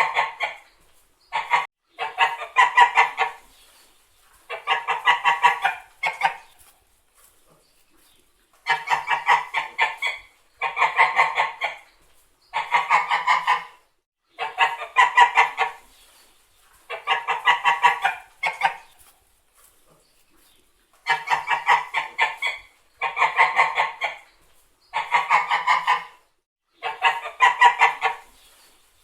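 White domestic geese honking: repeated harsh runs of honks, each lasting about a second, coming roughly every two seconds, with a couple of longer pauses.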